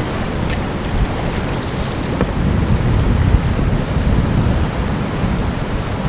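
Rushing river water over a shallow rocky rapid, a steady noisy wash close to the microphone, with low rumbling buffeting on the microphone.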